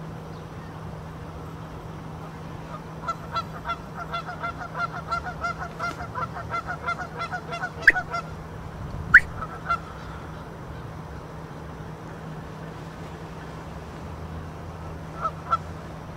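Canada geese honking: a rapid run of calls for about five seconds, then two loud single rising honks, and two brief honks near the end.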